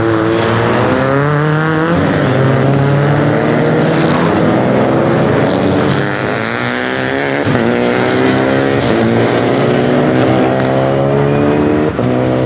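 Rally car engine under hard acceleration, its revs climbing and dropping back at each of several quick upshifts.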